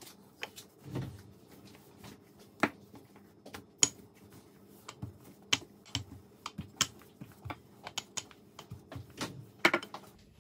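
Wooden rolling pin rolling out dough on a hard countertop: irregular sharp clicks and knocks, one or two a second, as the pin and its handles tap and rattle against the counter. A soft thud about a second in.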